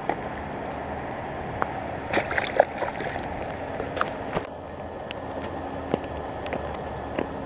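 Steady rushing outdoor noise with scattered clicks and taps from a handheld camera being moved, the clicks bunching together about two seconds in and again around four seconds.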